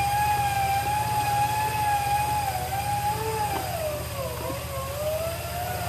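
Off-road 4x4 winch whining steadily under load over a running vehicle engine. Its pitch sags about two-thirds of the way through, then recovers.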